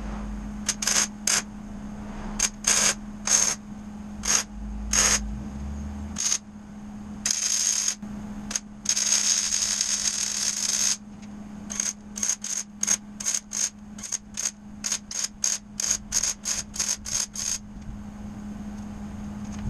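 Wire-feed welder tacking a steel unistrut frame: short bursts of arc crackle, one longer weld of about two seconds near the middle, then a quick run of short tacks about two a second, over a steady low hum.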